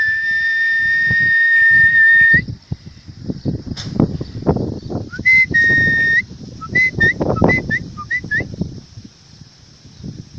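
A person whistling to call a bird home: one long steady whistle of about two and a half seconds, then a short and a long whistle, then a quick run of five or so short whistles, each flicking upward at the end. Low rustling and bumps sound underneath.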